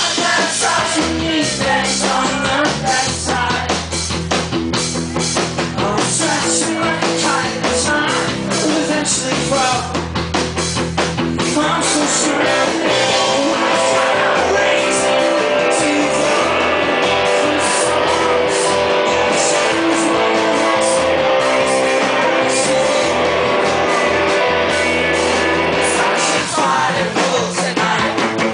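Live rock band playing: electric guitars and drum kit with a voice singing over them. About twelve seconds in, the band settles into a denser, steadier wall of sustained guitar chords.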